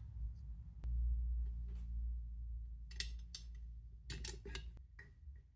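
Screws being driven into a hard drive in its metal drive bracket: small clicks and scrapes of the screwdriver and metal parts in the second half, over a low rumble.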